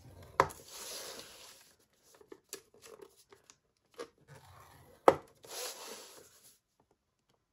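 Bone folder drawn along the grooves of a scoring board, scoring lines into cardstock: twice a sharp tap followed by about a second of papery scraping, with light ticks and rustles between.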